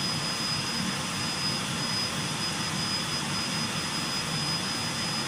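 CO2 laser paper-cutting machine running: a steady whoosh of air with a constant high-pitched whine over it.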